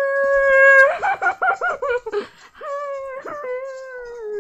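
A boy's long, high drawn-out "woooo" cheer: held steady for about a second, then wavering rapidly for about a second, then a second long note that slowly falls.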